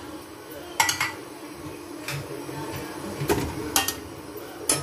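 About half a dozen separate clinks and knocks of kitchenware against an aluminium cooking pot as whole onion and garlic are put into the spiced water.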